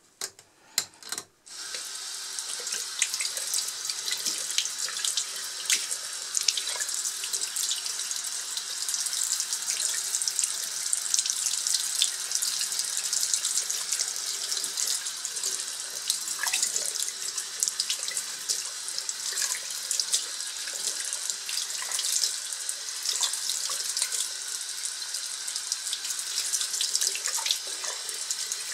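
Tap water running into a sink and splashing over a banknote held in the stream: a steady rush that comes on about two seconds in, after a couple of faint clicks.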